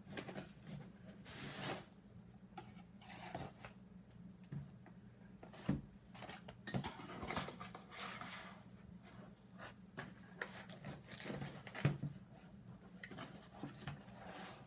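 Packaging being opened and handled: repeated rustling and scraping, with two sharper knocks about six and twelve seconds in, over a low steady hum.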